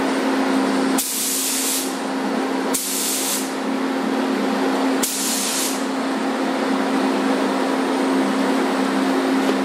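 Spray gun hissing in three short bursts in the first six seconds as paint is sprayed, over the steady hum of the paint booth's fans.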